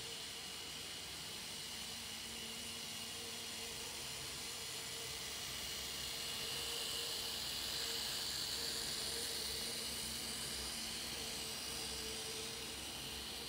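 Z-scale model train running along the layout: a thin electric motor whine and wheel noise that swells as the train passes, loudest about halfway through, over a steady hum and hiss.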